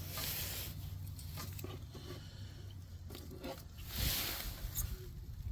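Blade cutting through a rubber radiator hose, crunching and tearing in two short spells, the second about four seconds in and the louder.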